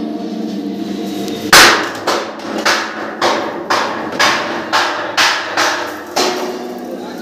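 Hammer blows on steel in a metal fabrication shop, coming about two a second from about a second and a half in, the first blow the loudest and each one trailing off briefly. A steady hum sits underneath.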